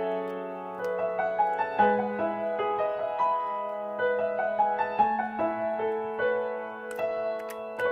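Background music: a slow, gentle keyboard melody with held notes over a sustained bass note.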